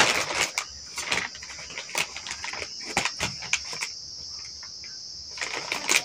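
Plastic courier mailer rustling and crinkling as it is handled and cut open with scissors, with irregular clicks and snips that die down for a second or so and pick up again near the end. A steady high-pitched chirring runs in the background.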